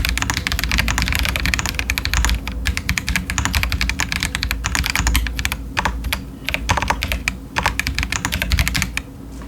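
Typing on a Feker Alice 80 mechanical keyboard with stock TTC Chaotic Panda switches and Cherry-profile doubleshot ABS keycaps. A fast, dense run of keystrokes with a few short pauses stops near the end.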